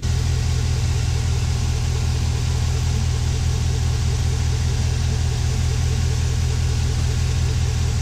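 Chevrolet Silverado pickup's engine idling steadily, heard close up in the open engine bay, with the alternator charging at about 14 volts.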